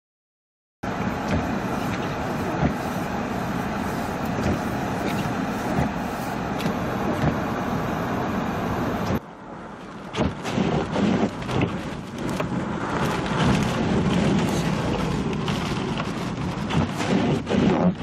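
Blizzard wind blowing over the microphone. It starts abruptly about a second in as an even hiss, and after a sudden change about nine seconds in it turns gusty, with uneven low buffeting rumbles.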